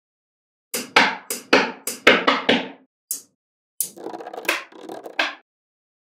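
Small magnetic balls clicking and snapping together as blocks of them are pressed into place: an irregular run of sharp clicks, with a busier rattle of clicks about four to five seconds in.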